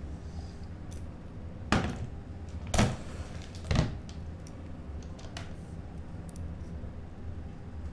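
Three knocks about a second apart as a plastic tape-measure reel is handled and set down on a wooden table, over a low steady hum.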